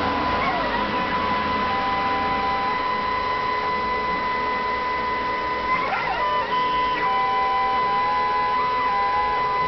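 Stepper motors of a homemade CNC router driving its axes through a G-code program with the spindle off: a steady mechanical whine made of several tones, some of which step up and down in pitch as the moves change. About six seconds in, the tones sweep quickly.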